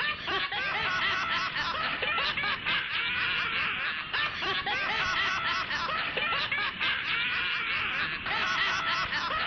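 Many voices laughing at once: a dense run of overlapping snickers and giggles.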